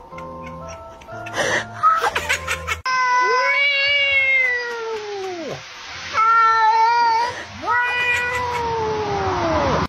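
A short stepping music melody that cuts off about three seconds in, followed by three long, drawn-out meows, each dropping in pitch at its end.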